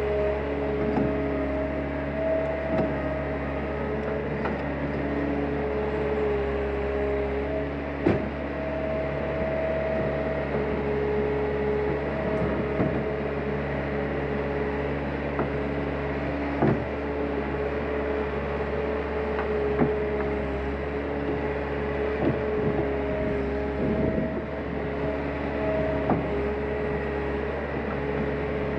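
Skid-steer loader running steadily, with a whining tone that drops out and returns every few seconds as it works, and a few short knocks scattered through.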